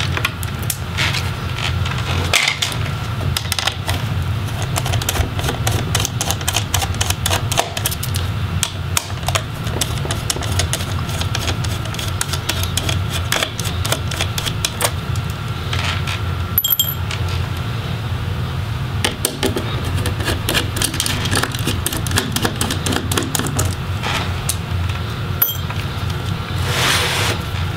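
Rapid small clicks and ticks of a precision screwdriver backing out small screws and of tools and fingers working connectors on an Alienware 15 R3 laptop's motherboard, over a steady low hum. A brief rustle near the end.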